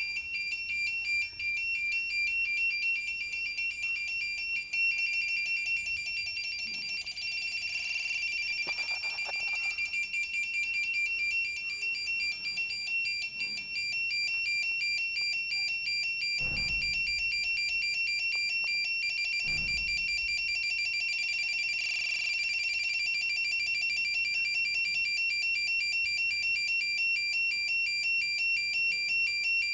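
Electronic signal sound effect: a rapid, steady pulsing of two high tones, like a continuous data-transmission beep. About halfway through there are two low thuds, three seconds apart.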